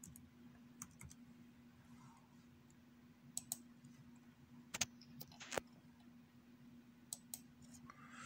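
Computer keyboard keys and mouse buttons clicking as numbers are typed into spreadsheet cells: a dozen or so separate sharp clicks spread unevenly over several seconds, over a faint steady hum.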